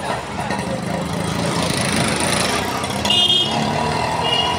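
Street traffic: a motor vehicle's engine running close by, swelling a second or so in. Two short high-pitched beeps come about three seconds in and again near the end.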